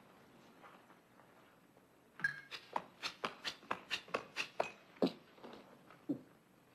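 A quick run of about a dozen sharp mechanical clicks, roughly four a second, then a few slower ones: Inspector Kemp's wooden prosthetic arm being clicked and ratcheted into position for a dart throw.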